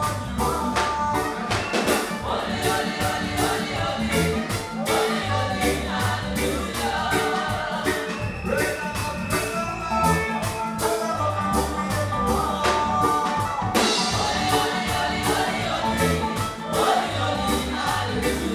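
Reggae band music with a man singing into a microphone over a steady drum beat and bass line.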